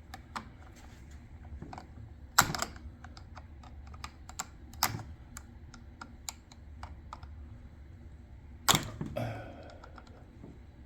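Scattered light clicks and ticks of tools and plastic and metal parts being handled, with three louder sharp clacks about two and a half, five and nine seconds in.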